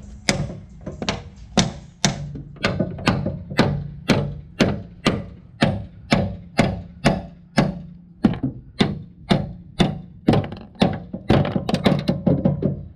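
Steel hammer striking the Hyundai Veloster's front strut assembly over and over, about two to three blows a second and quicker near the end, knocking the strut loose so it can come out.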